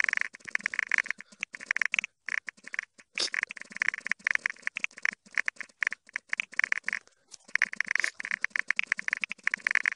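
Keyboard typing played back at four times speed: a fast, dense clatter of key clicks with brief pauses, raised in pitch by the speed-up.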